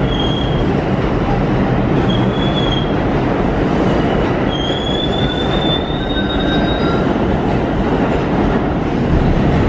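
Kawasaki R62 subway cars rolling along the platform with a steady, loud rumble. High squeals break in a few times, the longest from about four and a half to seven seconds in.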